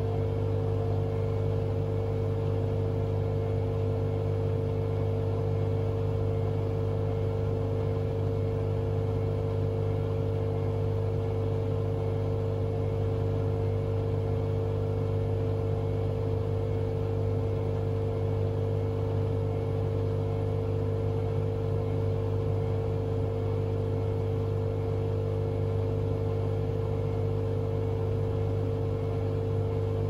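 Hotpoint Aquarius WMA32 front-loading washing machine running on its spin programme before reaching full spin: the motor turns the drum slowly with a steady, even hum, sounding quite smooth.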